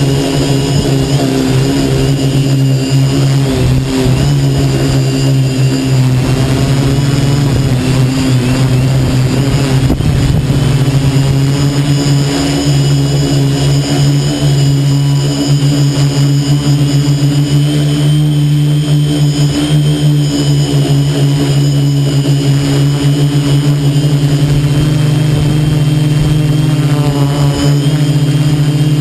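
A quadcopter's brushless motors and propellers, heard loud and close from on board in flight: a steady deep hum with a thin high whine over it. The pitch wavers about ten seconds in, then settles again.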